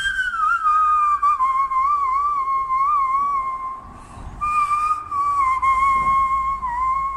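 Hand whistling (hand flute): a pure, flute-like tune blown into cupped hands, with a wavering vibrato on the held notes. It drops from a higher note near the start and breaks off briefly about four seconds in, then goes on.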